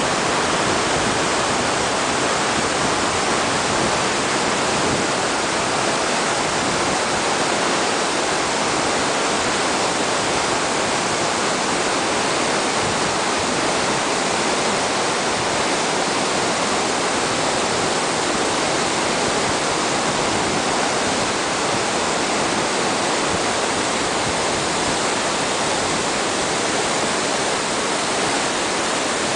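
Glacial meltwater of the Aare rushing out from the Oberaar Glacier's portal: a loud, steady rush of fast-flowing water.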